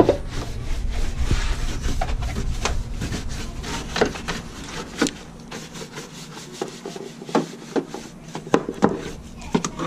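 A wheel-cleaner-type scrubbing brush rubbing over engine-bay surfaces in irregular scraping strokes. A low rumble underneath drops away about halfway through.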